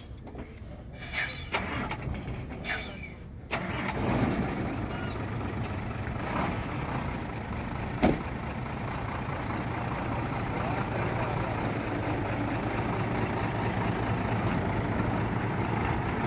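Hino FG1J truck's diesel engine being started: two brief bursts of sound, then the engine catches about three and a half seconds in and settles into a steady idle. A single sharp click comes about eight seconds in.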